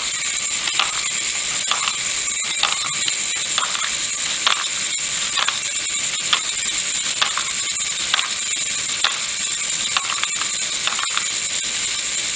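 A LEGO Great Ball Contraption module (the Jigsaw design), driven by an electric motor through a simple gear train, running with a steady high whir and a plastic clack about once a second.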